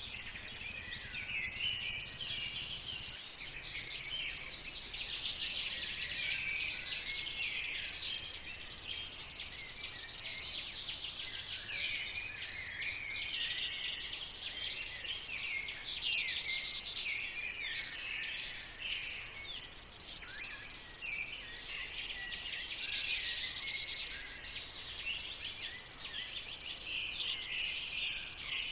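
Dawn chorus of many small songbirds singing at once, a steady dense mix of chirps, trills and short whistles.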